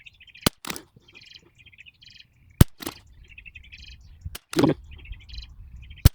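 Anschutz 1761 .22 LR rifle fired four times, about two seconds apart: each sharp crack is followed by a duller report a moment later. Small birds chirp throughout.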